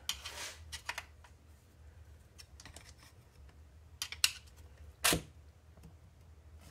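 Scattered clicks, rattles and knocks of plastic and metal RC truck chassis parts being handled and forced into place by hand, with a sharper knock about five seconds in.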